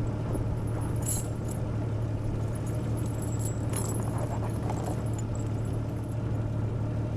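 Steel tire chains clinking and jangling in scattered bursts as they are fitted onto a tire, over a steady low hum.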